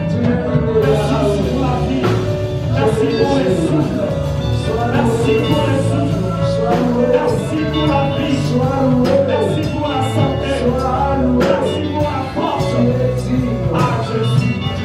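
Live worship music with singing and a steady beat.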